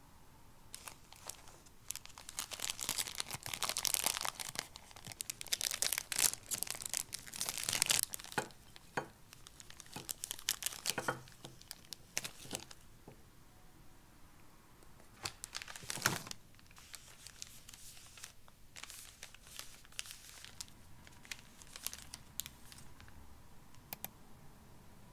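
Packaging being crinkled and torn open by hand, in dense rustling bursts through the first half, with one sharp rustle about sixteen seconds in and a few light crackles after.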